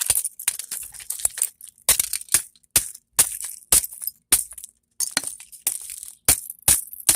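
Hand tools hitting and prying at scrap metal, a quick, irregular series of sharp clinks and cracks. This is the sound of a part being broken out of a scrap item to get at its copper.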